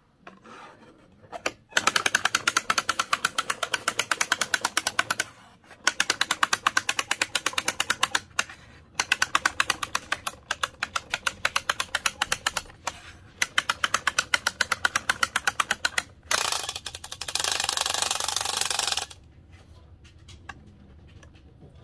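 Vintage Mister Screwball Jr wind-up toy's clockwork mechanism running: rapid, even clicking in four stretches broken by short pauses, then a denser buzz for about three seconds before it stops.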